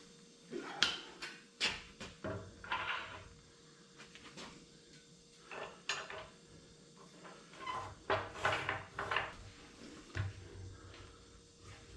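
Scattered metallic clinks and knocks, in small clusters, from handling a wood blank and metal tools at a wood lathe during setup.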